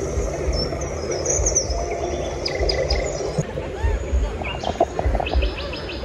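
Birdsong played over loudspeakers as the show's forest soundscape: high chirps, with quick trills about halfway and again near the end, over the low murmur of the crowd.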